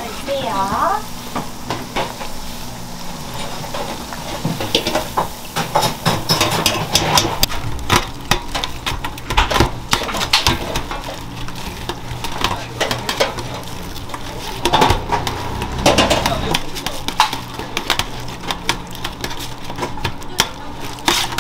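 Food-shop kitchen work: utensils, pans and trays clinking and knocking many times over a steady low hum of kitchen equipment, with a light sizzling hiss.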